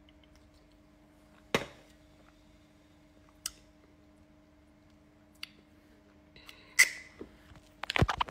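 Quiet room with a faint steady hum, broken by a few sharp single clicks a second or two apart, then a burst of knocks and rustling near the end as the phone is handled and moved.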